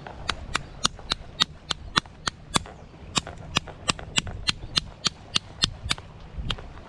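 The back of a butter knife striking mud crab claws to crack the shells, a rapid run of sharp knocks about three or four a second, with a short pause about three seconds in.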